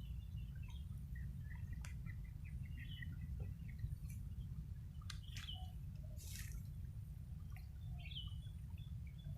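Birds chirping faintly and intermittently over a steady low rumble, with a few sharp clicks and short noisy bursts.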